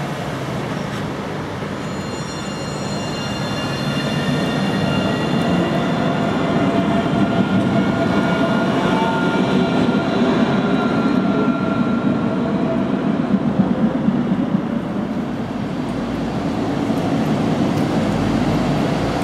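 Alstom Citadis low-floor tram running along street rails: a rolling rumble with an electric whine of several tones that shift slightly in pitch and fade away. Near the end a MAN articulated bus's engine rumble takes over.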